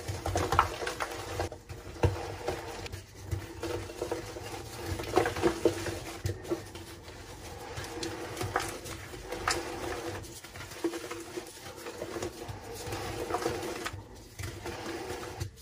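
Reformed gym chalk being crushed and crumbled in bare hands: soft, dry crunching of compressed powder breaking apart, with many small crackles.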